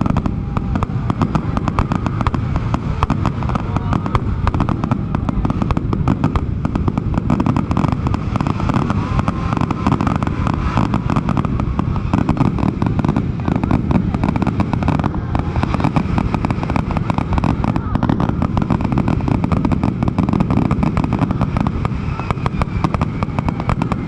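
Aerial fireworks display in its finale: a dense, unbroken barrage of shell bursts and crackling, many cracks a second with no pause.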